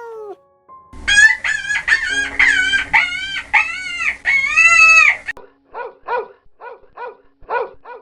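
A rooster crows in a long, loud call broken into several syllables, then chickens cluck in short repeated notes, about two a second.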